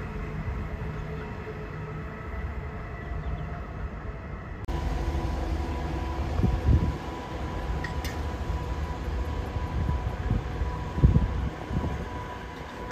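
Electric suburban train running: a steady hum and low rumble with a few steady tones. About five seconds in the sound changes abruptly to a louder rumble with a steady whine and a few short thumps.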